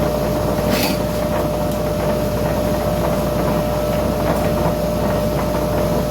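Ingco bench grinder's electric motor running steadily at full speed, a continuous hum with a steady whine on top. It is running normally again after a failed capacitor was replaced; before the repair it only hummed and would not start.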